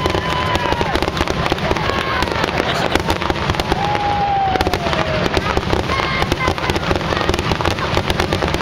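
Fireworks finale: a dense, unbroken crackle of rapid small bangs, with several whistling tones that slide down in pitch, the longest about four to five seconds in.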